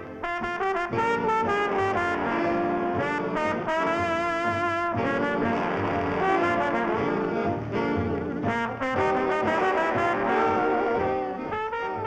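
Jazzy brass music, with trombone and trumpet carrying the tune.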